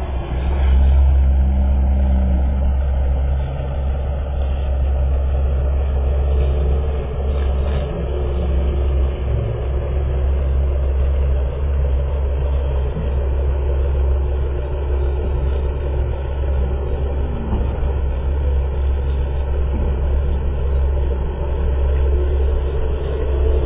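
Steady low rumble of heavy diesel machinery running on a construction site during a ready-mix concrete pour, with faint rises and falls in engine pitch.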